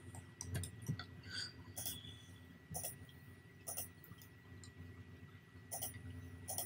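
Computer mouse clicking as points of a sketch line are placed, a series of separate clicks at irregular spacing, with a faint steady high tone beneath.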